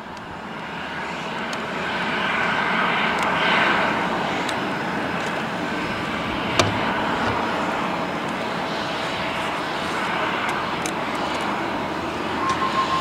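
Jet aircraft engines running on an airport apron: a steady rushing hum with a faint whine, building up over the first two seconds. A single click sounds about halfway through, and a rapid beeping starts near the end.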